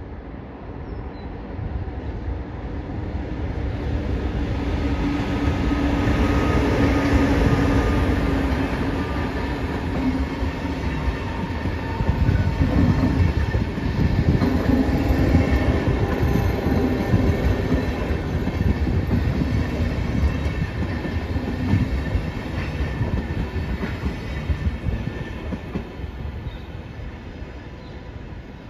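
A class 182 (Siemens Taurus) electric locomotive hauling a rake of passenger coaches passes by, wheels rolling and clattering over the rails. The locomotive passing is loudest, about seven seconds in, followed by a long run of coaches that fades near the end.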